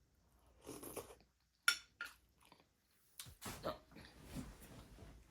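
Close-up eating sounds: scattered chewing and wet lip smacks while eating meat off the bone, with a sharp smack a little under two seconds in.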